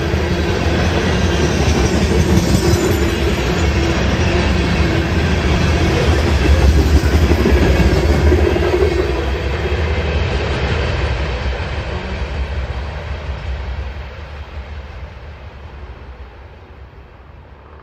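CSX covered hopper cars of a grain train rolling past, their wheels rumbling and clattering over the rails. The last car goes by about nine seconds in, and the sound then fades steadily as the train moves away.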